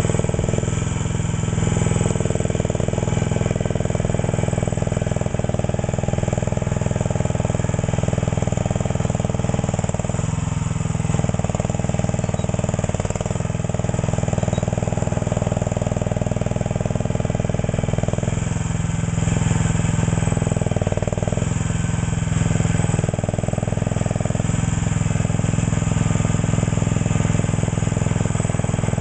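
Mini excavator engine running steadily, its tone shifting several times as it works.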